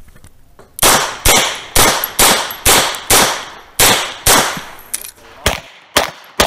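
A rapid string of about a dozen pistol shots from a Tanfoglio Limited Pro, starting about a second in and coming about two a second. It is a USPSA course of fire shot against the timer, and each report trails off in a short echo.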